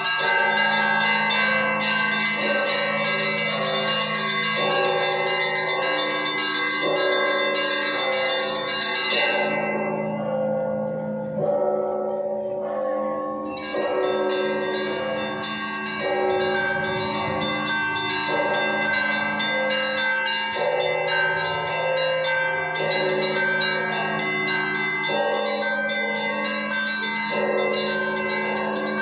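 Russian Orthodox church bells ringing the Paschal trezvon with all the bells together: fast patterns on the small and middle bells over the steady hum of the larger bells. About ten seconds in, the highest bells stop for a few seconds while the middle bells carry on, then come back in.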